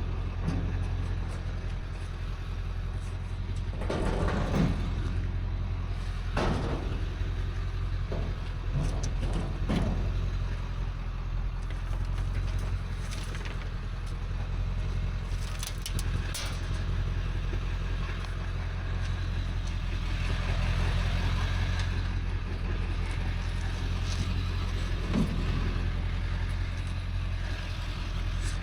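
Pickup truck running on the road with a steady low engine hum, and a few brief knocks and rattles along the way.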